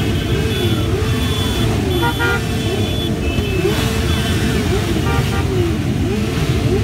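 A large group of motorcycles riding off together, many engines revving and changing pitch over one another, with a few short horn toots.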